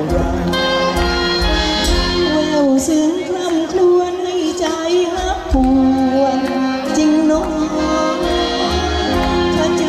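A woman singing a slow Thai song into a microphone, her voice gliding between notes, backed by a live band of saxophone, accordion, electric guitar and drums with a steady low beat.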